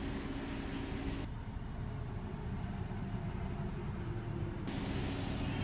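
Steady low cabin hum of a BMW X6 xDrive35i idling with its climate control running. The higher hiss drops away about a second in and comes back near the end.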